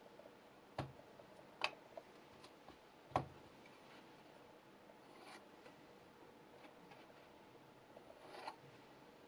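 HEZHEN Damascus VG10 chef knife cutting tomatoes, the blade knocking on the cutting board three times in the first few seconds, then twice more softly, with faint ticks of slicing between.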